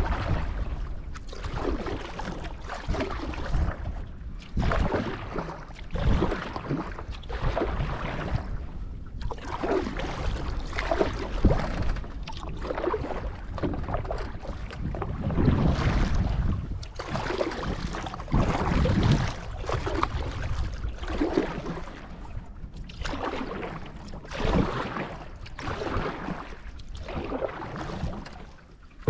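Canoe paddle strokes in lake water, a swishing splash about every one and a half to two seconds, over a low rumble of wind on the microphone.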